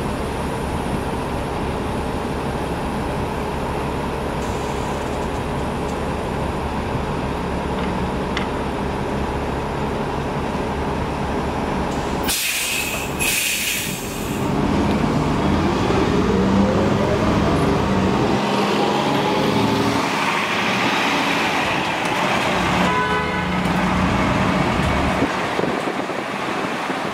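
Diesel articulated city bus, a New Flyer XD60, idling steadily, then two sharp hisses of air released from its brakes, after which it pulls away with a whine from the engine and drivetrain that rises in pitch as it speeds up.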